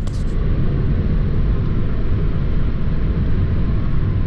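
Car driving along a paved road, heard from inside the cabin: a steady rumble of tyre and engine noise with a hiss above it.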